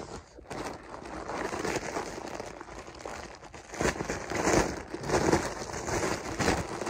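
Clear plastic packaging bag crinkling as it is handled, a continuous irregular crackle that gets louder about halfway through.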